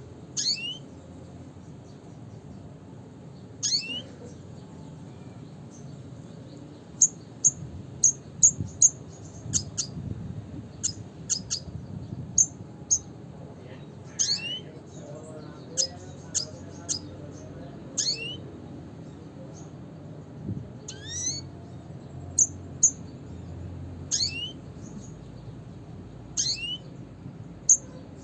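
Red siskin calling: short, high chips and quick downward-sweeping whistles repeated every second or two, with a fast run of chips about seven to nine seconds in. A low, steady background rumble lies beneath.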